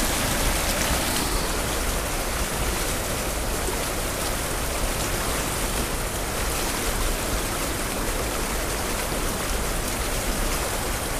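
Water rushing out of a corrugated metal culvert into the creek in a steady, even gush. It is water released when a beaver dam upstream was broken open, pushing through under a lot of force.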